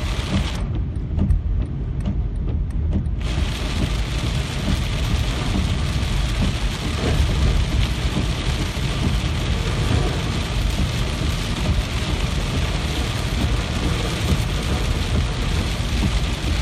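Steady heavy rain with a deep, continuous low rumble beneath it; the high hiss of the rain fills in about three seconds in.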